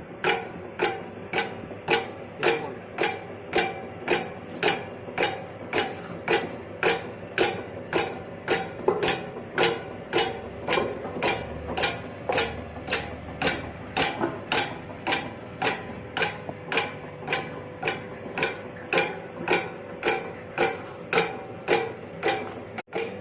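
Dough divider machine running, its mechanism clacking evenly about twice a second over a steady motor hum.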